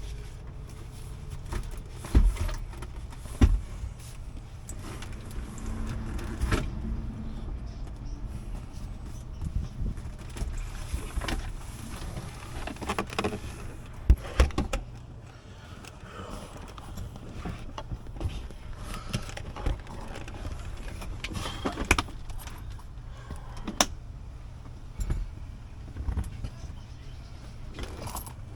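Irregular plastic knocks, clicks and scrapes as a Tesla Model 3 Gen 1 center console is worked loose and pulled out, with a few sharper knocks about 2, 3.5 and 14 seconds in, over a steady low hum.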